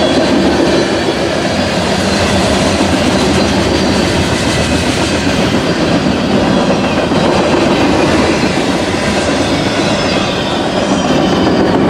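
Freight train cars rolling past at speed: a steady, loud rumble of steel wheels on rail with clickety-clack over the joints.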